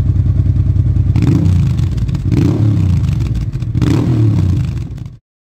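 Motorcycle engine running loudly, revved three times about a second apart, then cut off suddenly near the end.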